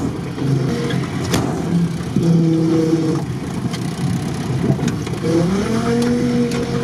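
A UAZ off-roader's engine heard from inside the cab, revving up and easing off as it drives. The pitch climbs about half a second in, again around two seconds, and again around five seconds. There is a sharp knock about one and a half seconds in.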